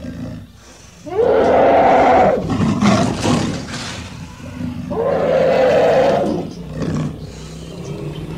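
Lion roaring twice in long, rough bursts, the first about a second in and the second about five seconds in.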